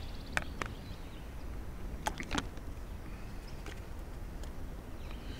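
A few sharp clicks and snaps, about half a second in and again around two seconds in, as a collapsible silicone coffee dripper is pulled open and handled. Under them is a steady low rumble of running water.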